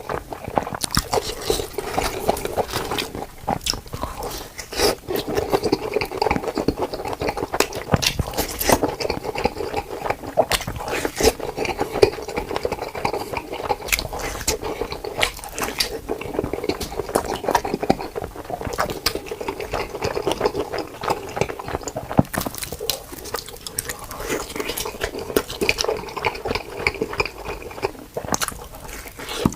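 Close-miked mouth sounds of a person eating cheesy pizza: biting and chewing, with many irregular clicks and smacks.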